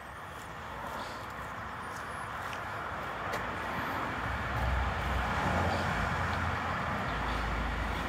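Outdoor traffic noise: a steady rumble and hiss of a vehicle, growing gradually louder over several seconds.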